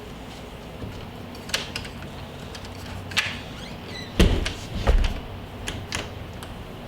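Clicks of a newly installed doorknob and latch being worked, with two heavy thumps about four and five seconds in.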